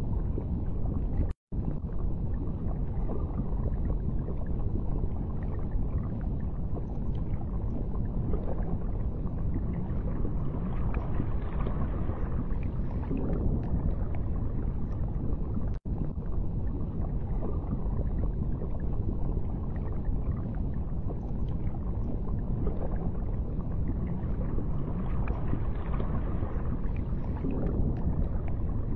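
Underwater ambience: a steady low rumbling wash of water with faint scattered crackles, cutting out briefly twice.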